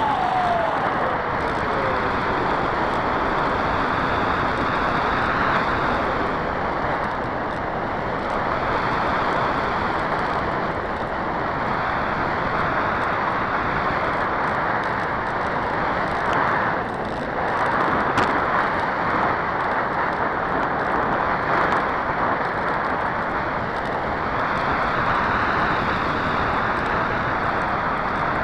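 Airflow rushing over the onboard camera's microphone of a Bixler 2 RC plane gliding with its motor off, a steady rush that swells and eases every few seconds. In the first couple of seconds the electric motor's whine falls away in pitch as it spins down.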